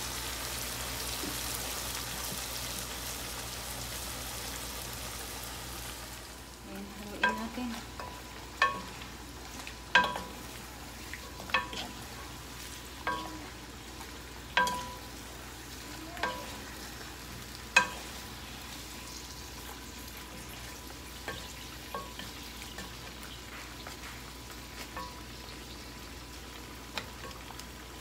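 Pork and chicken pieces sizzling in a pot in soy sauce, the hiss easing off about six seconds in. Then the meat is stirred with wooden spatulas, which knock against the pot in sharp clicks with a short ring about every second and a half, growing fainter and sparser near the end.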